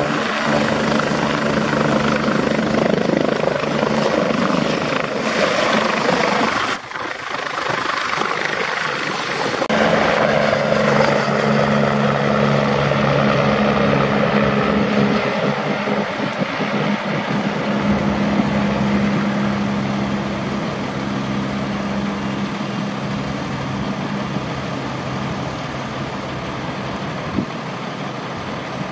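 Airbus UH-72A Lakota (EC145) twin-turbine helicopter running, turbine whine and rotor blades steady and close at first. After a break about seven seconds in it is heard in flight, slowly growing fainter.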